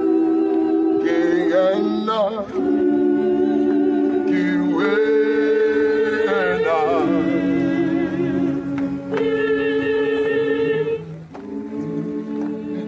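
Gospel choir singing unaccompanied in held multi-part chords, with a single voice with wide vibrato rising above the chords twice. The singing drops somewhat in level about eleven seconds in.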